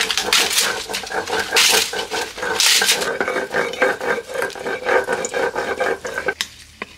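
Stone roller rubbed back and forth on a stone grinding slab (sil-batta), grinding spices, with three louder scraping strokes about a second apart in the first three seconds; the grinding stops about six seconds in.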